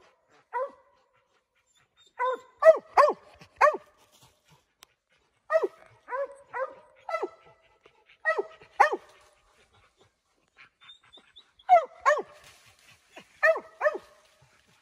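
A Mountain Cur barking treed at a squirrel. The barks come in quick bursts of three to five, with short pauses between bursts.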